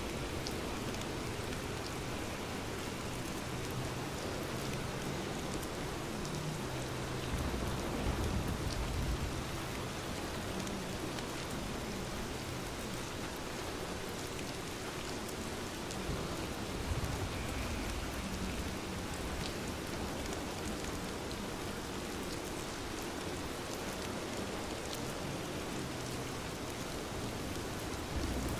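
Steady rain falling, an even hiss throughout, with low rumbles swelling twice, about a third of the way in and past the middle.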